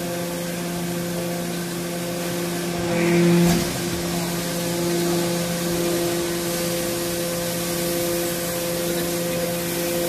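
Hydraulic power unit of a scrap metal baler running with a steady hum. About three seconds in the hum swells louder for about half a second and ends in a short knock.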